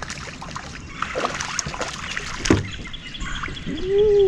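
Light splashing and dripping water as a hooked crappie is reeled up and lifted out of the lake beside a small boat, with scattered clicks and one sharp knock about two and a half seconds in. Near the end a drawn-out voice rises and falls in pitch.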